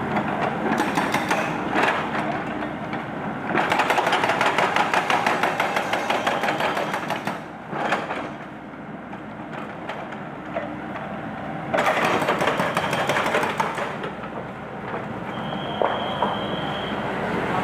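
Excavator-mounted hydraulic breaker hammering a concrete monument in rapid blows, in three bursts: briefly about a second in, for about four seconds from the fourth second, and for about two seconds from the twelfth second.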